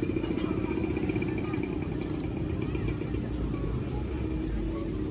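A small motor vehicle engine, such as a motorcycle's, running steadily at idle, with a low throbbing hum, over faint outdoor street-market crowd noise.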